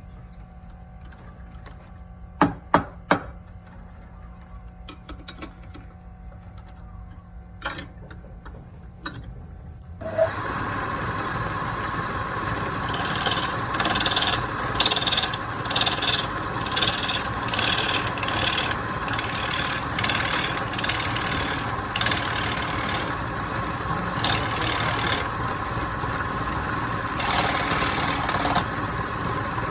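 A few sharp knocks of wood being handled, then about ten seconds in a woodworking power tool starts and runs steadily, with repeated rasping strokes of a tool or abrasive working the wood.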